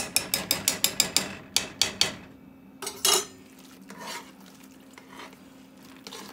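A wire whisk beating buttermilk into mashed potatoes in a stainless steel saucepan. For about two seconds its wires tick against the pot at about six strokes a second, then there is a louder knock about three seconds in, followed by softer, wetter stirring.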